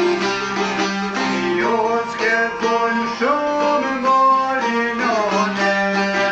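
Albanian folk music on the plucked çifteli, a steady drone note sounding under a quick melody that bends in pitch about three seconds in.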